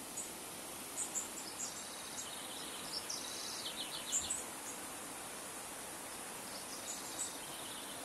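Shallow river running over stones: a steady rushing babble. Birds chirp high above it now and then, with a run of quick repeated notes about three to four seconds in.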